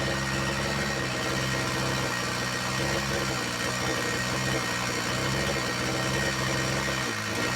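Two-stroke chainsaw engine running steadily at low speed, with an unchanging pitch and no revving.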